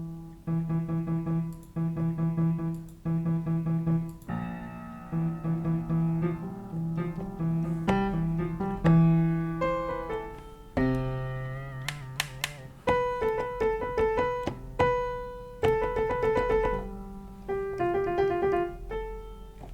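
Sampled software piano from an Ableton Live sound pack being played: the same chord struck three or four times at first, then changing chords and single melody notes, each left to ring and fade.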